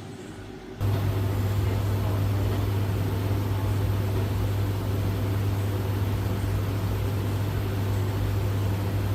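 Beko WS832425s washing machine on its final spin: a steady motor hum with an even whirr from the spinning drum, which jumps suddenly louder just under a second in.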